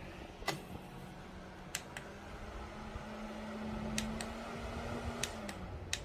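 Small Daiso handheld fan's motor running with a steady low hum that rises in pitch about two seconds in and drops back near the end, as its speed setting changes, with several light clicks.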